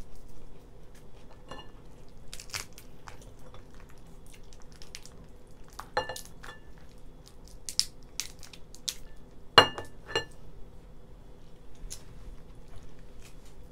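A cooked lobster being broken apart by hand over a ceramic bowl: scattered cracks and crunches of shell, with sharp clicks of shell on the bowl, the loudest about nine and a half seconds in.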